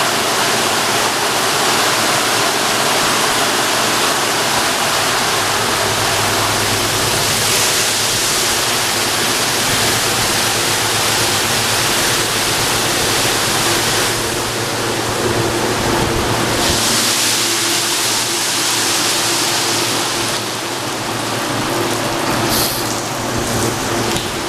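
Christ Varius automatic rollover car wash in its brush wash: water spraying and hissing while the rotating brushes sweep over the car, with a steady hum underneath. The spray gets brighter twice, about seven seconds in and again for a few seconds past the middle.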